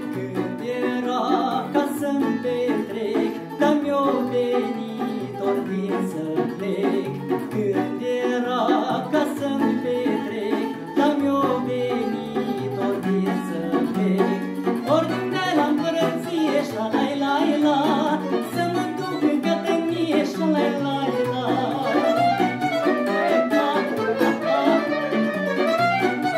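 Folk band performing a Romanian soldier's song (cântec de cătănie): a man sings over two violins, a clarinet and a plucked lute.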